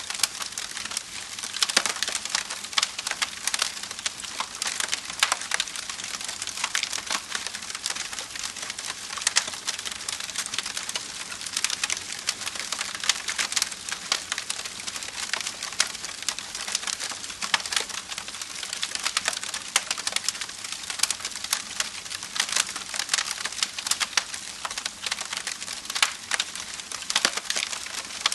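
Wood fire crackling, with a dense, irregular stream of sharp pops and snaps over a steady hiss.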